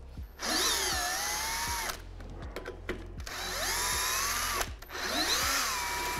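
Cordless drill-driver running in three short bursts as it backs out bolts on a balloon fuel cylinder's liquid take-off valve, the motor's whine sliding down and up in pitch as the trigger and load change.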